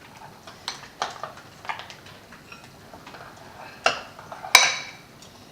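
A spoon stirring slime in a bowl, with scattered knocks and scrapes against the bowl and a ringing clink near the end.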